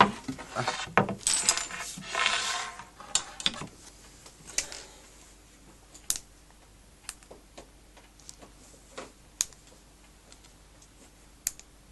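Small metal hardware clinking and rattling together for the first few seconds, then a few scattered single clicks and taps.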